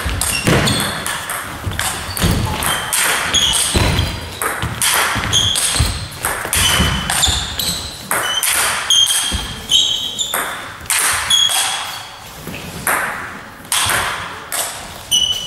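Table tennis rally: the ball clicks off the bats and bounces on the table in a quick back-and-forth, each contact a short sharp tock with a brief high ping, echoing in a large sports hall.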